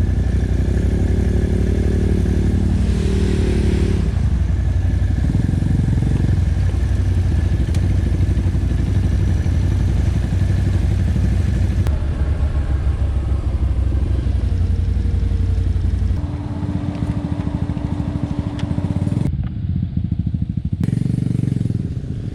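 ATV engine running while riding along a trail, its pitch rising and falling with the throttle. About sixteen seconds in the sound drops and settles into a steadier tone.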